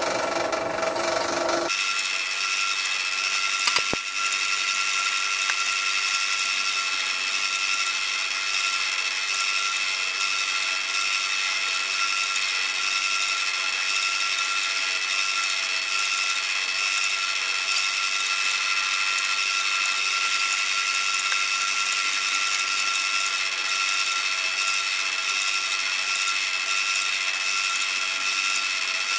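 Power tool running steadily with a high whine, which changes about two seconds in and then holds even.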